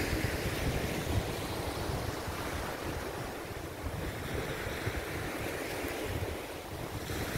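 Small waves breaking and washing up a sandy shore, with wind gusting on the microphone.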